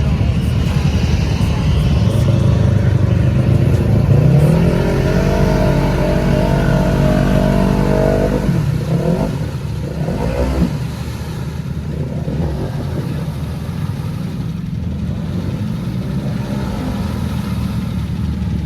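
ATV engine revving: the revs climb about four seconds in, hold high for several seconds, then fall away, and the engine runs on at lower revs.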